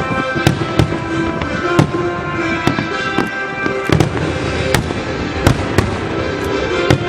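Aerial firework shells bursting: about ten sharp bangs at irregular intervals, some close together. Steady music plays under the bangs.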